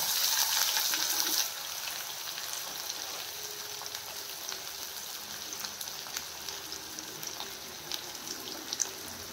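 Chopped onions sizzling as they are dropped into hot oil in a kadai. The sizzle is loudest for the first second and a half, then settles to a steadier, fainter hiss with small crackles.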